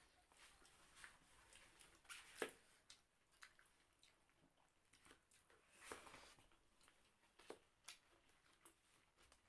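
Faint eating sounds of rice and egg curry being eaten: quiet chewing and wet squishes, with scattered small clicks, the sharpest about two and a half seconds in.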